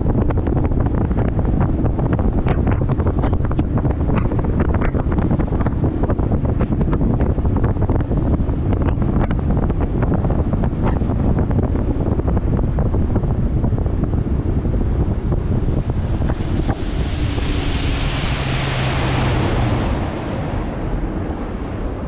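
Wind buffeting the microphone of a bass boat running fast across the river, with the rush of water and the outboard underneath in steady, gusty noise. The noise eases off about two seconds before the end.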